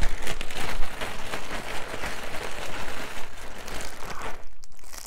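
Thin clear plastic packaging crinkling and rustling as it is handled and opened by hand, a dense crackle that stops about four seconds in.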